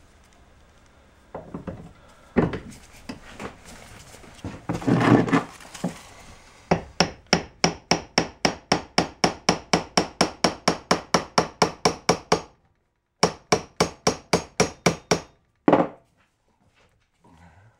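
Hammer tapping a new outer CV joint onto the splined end of an ATV drive axle, driving it on until its circlip seats. A few irregular knocks and scrapes, then a fast, even run of sharp blows about four a second, a short pause, a second run, and one last blow.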